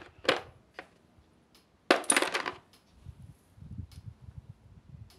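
Steel sockets clinking and rattling against each other in a plastic socket-set case as they are sorted through by hand, with a longer jangle about two seconds in, then soft low handling noises.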